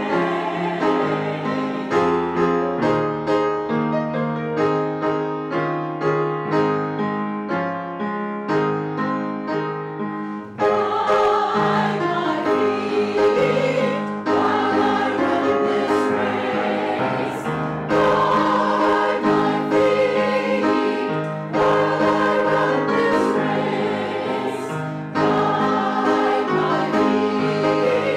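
Church music: a piano plays alone for about ten seconds, then a group of voices comes in singing a hymn with the piano accompanying.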